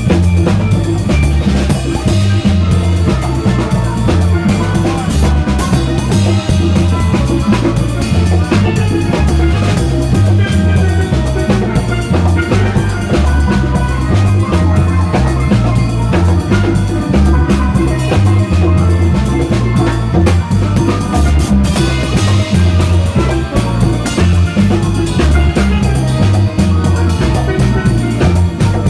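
Live steel band music: steel pans playing the melody over a stepping bass line and steady drums.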